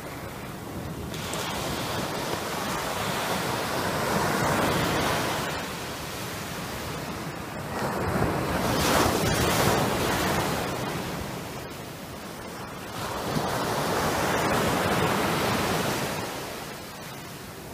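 Small surf breaking and washing up a sandy beach, the rush of water swelling and fading three times, about every five seconds.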